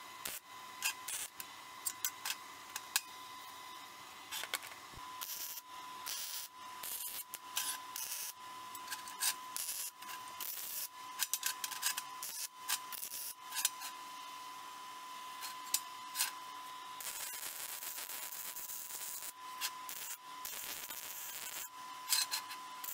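Steel plates being handled and fitted on a steel welding table: scattered clinks, taps and scrapes of metal on metal. A stretch of steady hiss comes about three-quarters through, with a faint steady high tone underneath.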